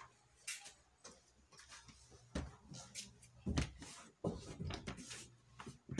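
Scattered knocks and dull thumps, the loudest about three and a half seconds in, from a phone camera being handled and carried through a small room.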